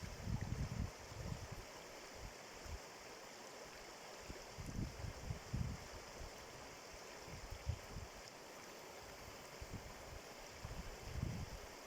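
Running water hissing steadily, with gusts of wind rumbling on the microphone, strongest in the first second and near the end.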